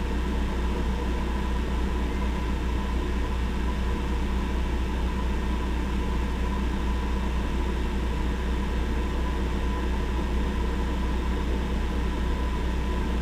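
South Bend 14-1/2 lathe running steadily: a low motor hum with a steady whine from the drive.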